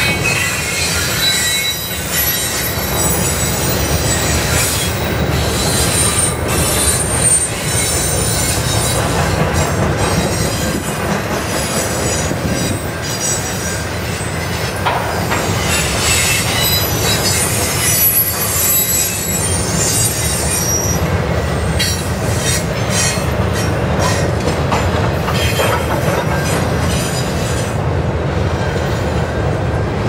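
Two freight trains rolling past side by side, a string of tank cars in front and double-stacked container cars behind. Steel wheels rumble steadily and clack over rail joints, with thin high-pitched wheel squeal over the top.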